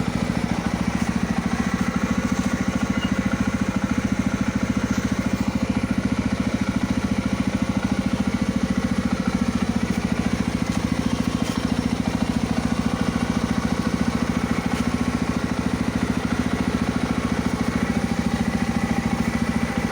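Yezdi Roadster motorcycle's single-cylinder engine idling steadily, with an even rapid pulse, and an exhaust sound that the owner asks about as having changed.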